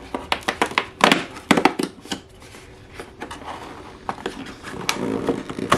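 Cardboard advent calendar door being torn open and its contents handled: a run of crackling, crinkling paper and sharp clicks over the first two seconds, quieter rustling, then more clicks near the end.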